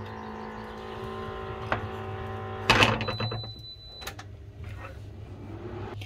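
Steady electric hum of a kitchen appliance with a faint whine, cut off by a sharp clatter a little under halfway through, followed by a short high-pitched beep about a second long.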